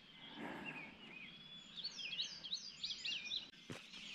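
Several songbirds singing at once in the pre-dawn chorus, a thicket of short chirps and sweeping notes that grows busier after about a second and a half. A single sharp click near the end.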